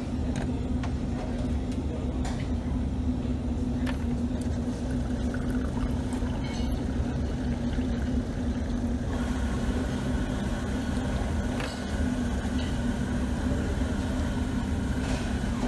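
Water running from a water dispenser's tap into a stemmed glass for several seconds, starting about halfway through, over a steady low hum.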